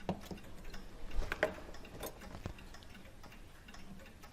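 Light, irregular metallic clicks and taps of small tools and parts on a brass clock movement as the rack is worked loose, mostly in the first two and a half seconds, over faint steady ticking.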